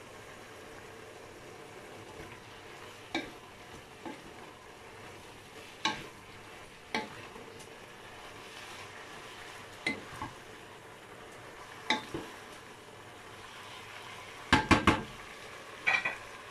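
Vegetables and chicken sizzling steadily in a stone-coated non-stick pot as a wooden spoon stirs them, with a sharp knock of the spoon against the pot every second or two. Near the end comes a louder clatter of several quick knocks.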